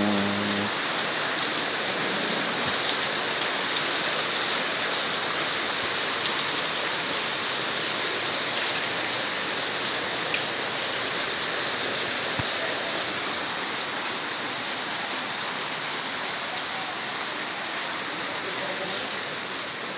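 Heavy downpour: rain pouring down and splashing on wet paving, a steady hiss that eases slightly near the end.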